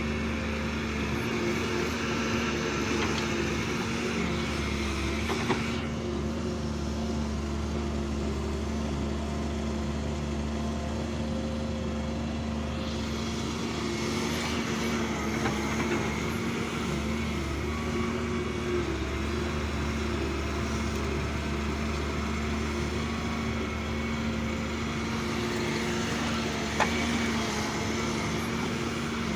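Diesel engine of heavy earthmoving machinery running steadily with a low hum. A sharp knock comes about five seconds in and another near the end.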